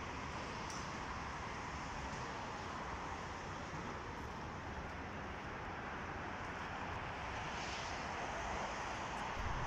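Steady outdoor background noise with no distinct events: a constant rushing hiss, such as wind and distant traffic make.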